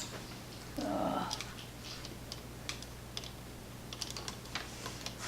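Handling noise: scattered light clicks and taps, with a short murmur of voice about a second in.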